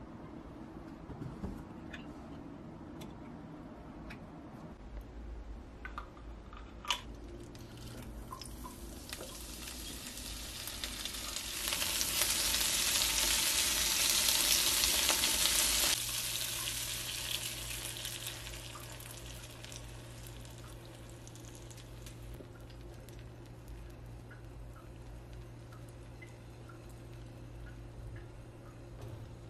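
Food sizzling in a hot pan: the hiss builds over a few seconds, holds loud for several seconds, then drops away suddenly and trails off. A few light clicks of utensils come before it, over a steady low hum.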